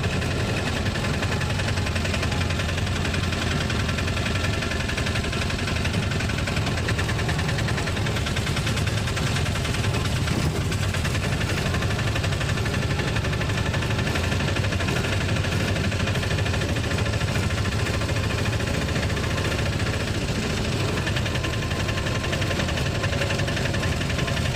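Auto-rickshaw engine running steadily as the vehicle drives along, heard from inside the cabin.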